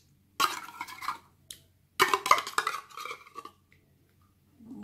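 A metal spoon scraping and clinking against a container and the bowl as thick cream is scooped out onto the salad. It comes in two bursts of quick strokes, with a shorter one near the end.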